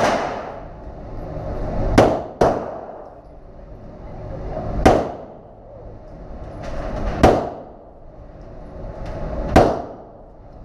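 Six gunshots at a shooting range, spaced about two to two and a half seconds apart, with two fired close together about two seconds in; each crack trails off in an echo lasting about a second.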